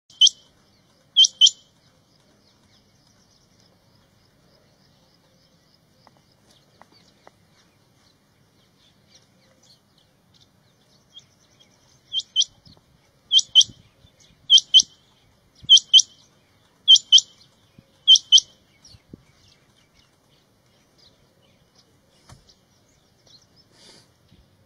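Male rain quail calling: sharp high double notes, one short note and one pair near the start, then after a pause a run of six pairs about a second apart.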